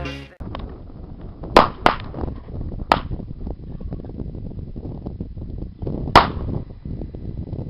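A burning plastic scale-model sports car giving four sharp pops, spread irregularly over several seconds, over a low rumble of wind on the microphone. A song cuts off right at the start.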